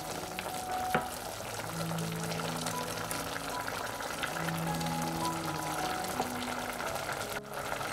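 Background music with held notes over the sizzle of diced kohlrabi, potato and onion frying in oil in a pot as a wooden spoon stirs them, with a few light clicks from the spoon.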